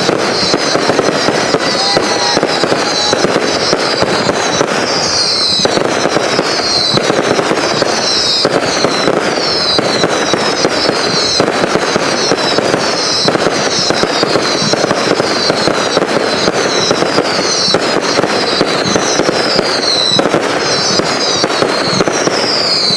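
Consumer fireworks going off in a dense, continuous barrage: a loud unbroken crackling din with no pauses, laced with high falling whistle-like sweeps about once a second.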